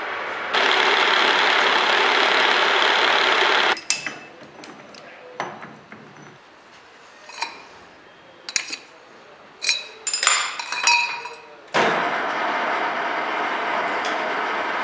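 Milling machine running with its cutter on a steel gear blank held in a dividing head, stopping abruptly about four seconds in. Then sharp metal clinks and knocks of tools on a lathe's chuck and tool post, until the lathe is switched on near the end and runs steadily with a steel bar spinning in the chuck.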